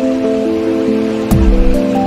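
Background music of held, overlapping notes, with a deep falling boom a little past halfway.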